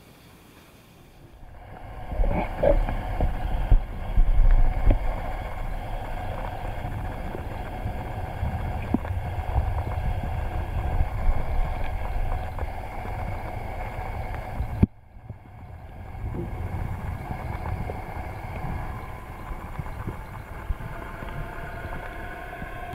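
Microbubble bath generator running in the tub, a steady motor hum with churning water under it. It starts about a second and a half in, with a few louder knocks and splashes between two and five seconds in. The sound cuts off abruptly about fifteen seconds in and comes back a second later.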